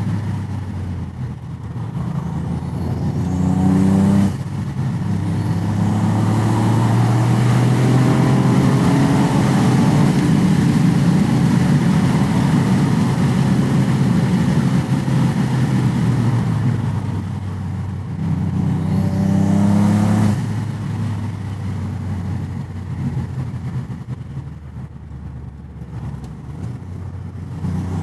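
Toyota GR Yaris's turbocharged 1.6-litre three-cylinder engine with an aftermarket intake airbox, heard from inside the cabin under acceleration. Twice the engine note climbs in pitch and then cuts off suddenly as the driver lifts off, about four seconds in and again about twenty seconds in, with a long stretch of hard pulling in between.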